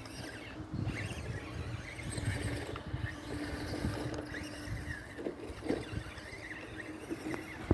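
FTX Outback radio-controlled crawler driving, its electric motor and gears whining steadily over a low rumble, with scattered knocks from the chassis and tyres on the ground.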